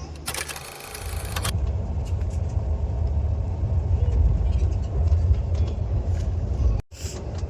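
Low, steady rumble of a moving passenger train heard from inside the coach. About a second in there is a brief loud rustle, and near the end the sound cuts out for an instant.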